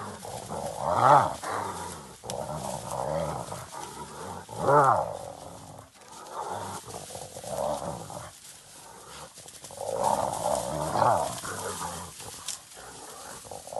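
A hyena and African wild dogs fighting: a run of loud, wavering, pitched calls and growls every second or two, loudest about a second in and again near five seconds.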